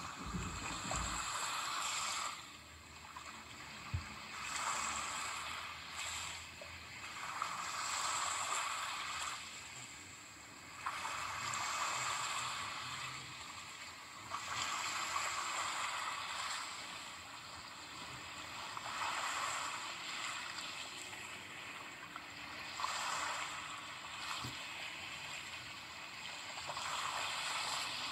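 Ocean surf: waves washing in and drawing back in slow, even swells, one about every three to four seconds. A brief low thud right at the start.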